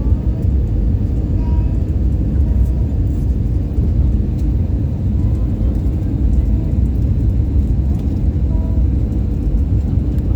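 Airbus A320 cabin noise: a steady low rumble of engines and airflow that does not rise or fall.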